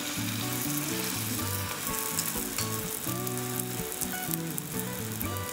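Hot vegetable oil sizzling steadily as a yeast flatbread fries in a shallow pan, with background music playing over it.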